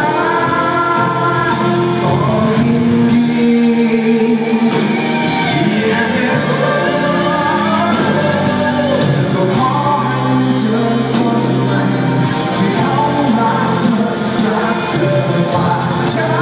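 A live rock band and singer performing in a large hall, heard from within the audience: sung notes held over electric guitar and drums.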